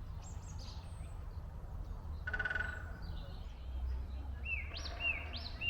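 Wild birds singing in a forest: a short, fast rattling trill about two seconds in, then a bird repeating quick arched whistled notes, about two a second, toward the end.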